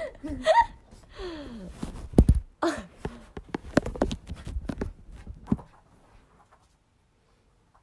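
Women laughing, with rustling and knocking as a phone is jostled on a bed, and one heavy thump a little over two seconds in. The noises die away about six seconds in.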